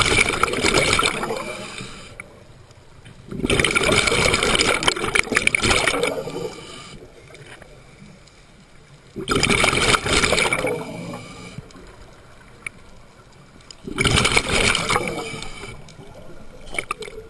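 Scuba regulator exhaust underwater: bubbles of exhaled breath gurgling past the camera in bursts of about two seconds, four times, roughly every four to five seconds, with quieter stretches between breaths.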